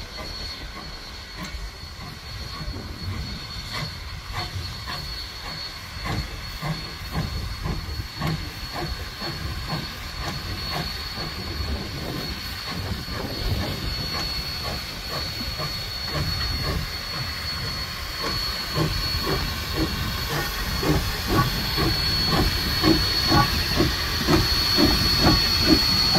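Small 0-4-0 saddle-tank steam locomotive working slowly toward the listener, its exhaust chuffing at about two to three beats a second, getting louder as it draws close. A steady high steam hiss runs along with it.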